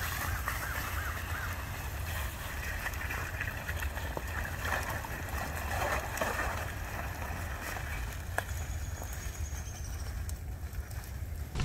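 Off-road power wheelchair tires sloshing and crackling through slush, thin ice and puddles, over a steady low rumble.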